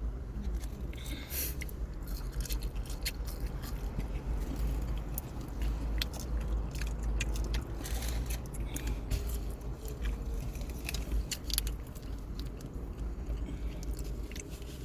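Close-miked handling of fast-food packaging and food: irregular soft clicks, crinkles and rustles over a steady low hum.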